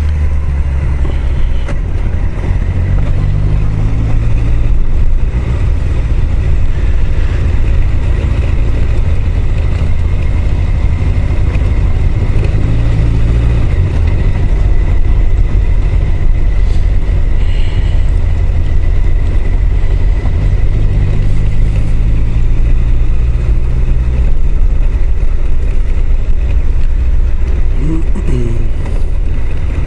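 Honda CBR1000F inline-four engine running at low road speed, heard through a helmet microphone under a heavy low rumble, its pitch rising and falling several times as the throttle is worked through bends.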